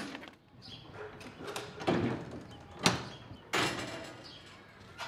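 A few knocks and rattling clatters from the metal livestock trailer and pen hurdles as sheep are handled: a rattle about two seconds in, a sharp knock near three seconds, and a sudden clatter just after.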